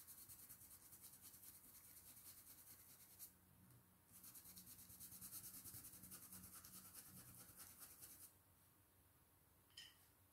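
Faint, rapid dabbing of a stencil brush on a plastic stencil laid over fabric, in two runs with a short break in between, then stopping.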